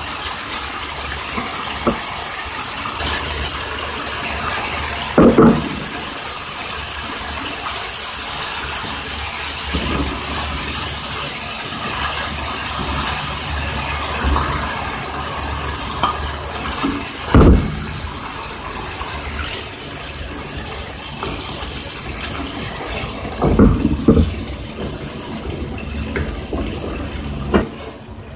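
Onion and tomato curry base sizzling steadily in oil in a frying pan, with a wooden spatula knocking and scraping against the pan a few times.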